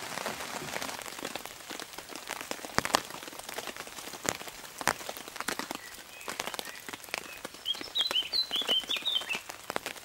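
Raindrops striking a tarp overhead as irregular sharp taps, heard from beneath it. Near the end a bird calls in a quick run of short chirps.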